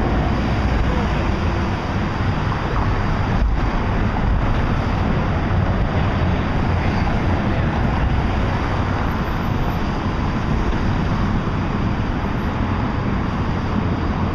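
Steady outdoor city noise: a continuous wash of traffic with wind on the microphone.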